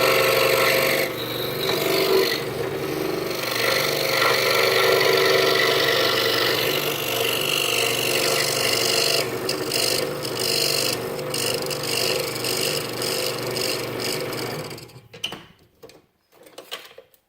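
Scroll saw running and cutting through half-inch pine, a steady motor hum under a rasping saw blade. The saw stops near the end, leaving a few faint clicks.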